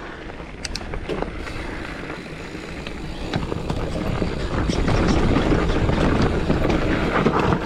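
Giant Fathom mountain bike riding a dirt trail: tyres rumbling over the ground with a rush of air, growing louder between about three and five seconds in. Scattered sharp clicks and knocks come from the bike rattling over bumps.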